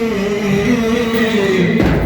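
Male reciter chanting a long, held melodic line that wavers in pitch, in the style of a Shia religious lament, with a dull thump near the end.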